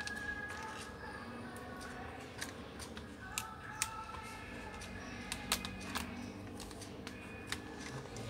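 Scattered sharp clicks and taps from small laptop parts and tools being handled on a workbench, about five of them through the middle and latter part.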